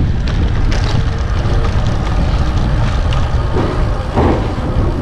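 Wind buffeting the microphone while riding a bicycle at speed: a loud, steady low rumble with no break.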